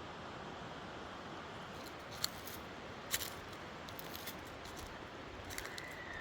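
Footsteps through woodland ground cover: sharp snaps and crunches of twigs and leaves underfoot over a steady hiss, the loudest two about two and three seconds in. Near the end a thin, steady whistle-like tone begins and slowly falls in pitch.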